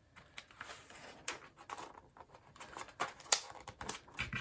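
Irregular light taps, clicks and rustles of vellum paper being handled and lined up for measuring on a craft table, with a sharper tick about three seconds in.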